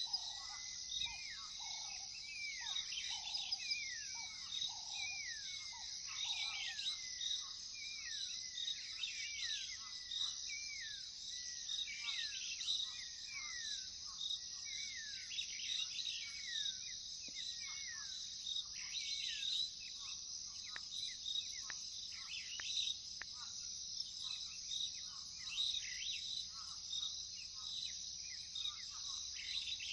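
A steady, high-pitched chorus of crickets with birds calling over it: a quick run of short falling whistled notes through the first half, lower repeated notes early on, then scattered chirps.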